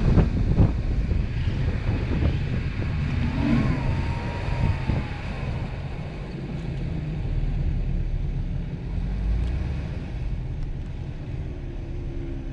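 Off-road vehicle's engine running as it drives across soft sand dunes. There are a few knocks in the first second, and the engine noise eases somewhat after about six seconds.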